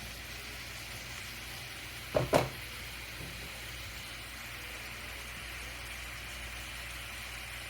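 Green beans with bacon and onions sizzling steadily in a frying pan, with a single brief knock about two seconds in.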